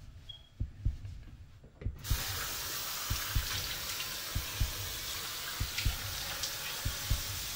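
A tap is turned on about two seconds in and water runs steadily into a sink. Under it, low heartbeat-like thuds repeat throughout.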